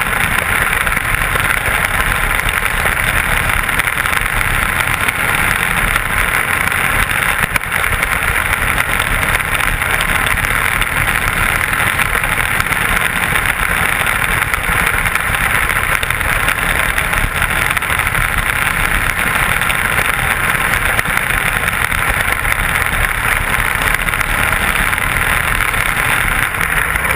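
Intermediate sprint car's engine running hard at racing speed on a dirt oval, a loud, steady roar mixed with wind rush, heard muffled through a helmet-mounted camera.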